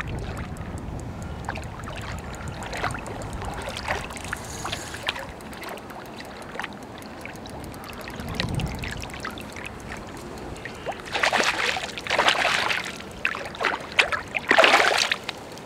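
Hooked trout thrashing and splashing at the water's surface, in loud bursts during the last few seconds, over wind rumbling on the microphone.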